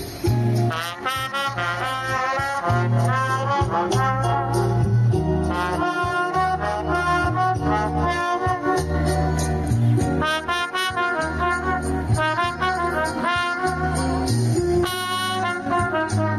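Trumpet playing a melody in phrases of held and moving notes, over accompaniment with a steady bass line beneath.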